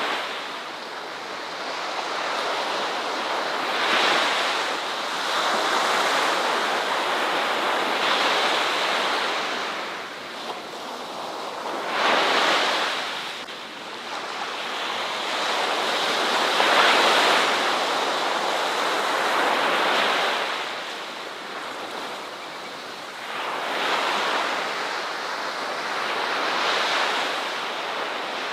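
Ocean waves breaking and washing on a shore, swelling and falling away every three to five seconds in a continuous surf wash.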